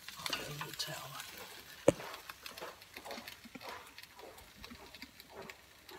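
Red capsicum strips sizzling softly in a frying pan, with scattered small crackles and a wooden spoon stirring them at the start. One sharp knock comes about two seconds in.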